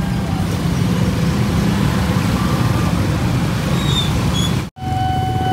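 Mixed road traffic, mostly motorcycle and car engines idling and pulling away over a railway level crossing as the barriers lift. After a sudden break near the end, a steady electronic level-crossing warning tone starts.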